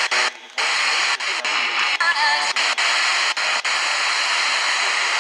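FM radio receiver on a weak signal: loud static hiss with faint broadcast audio buried under it. The hiss cuts out briefly about half a second in and for several shorter moments after that.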